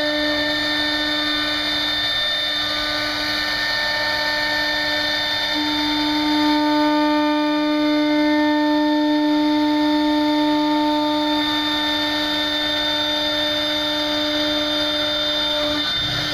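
CNC router spindle running at a steady high whine as its end-mill bit trims flash from the edge of a white formed plastic part. The whine grows stronger about five seconds in.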